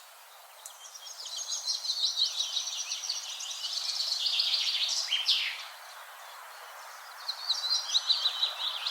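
Small forest birds twittering and chirping high-pitched, busiest in the first half, thinning out about six seconds in and picking up again near the end, over a light breeze.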